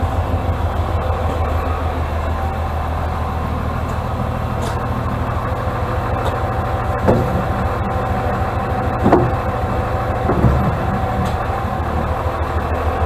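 Atlas 1602 wheeled excavator's diesel engine running steadily while the arm and bucket are worked. A steady whine runs through the middle, and three short knocks come in the second half.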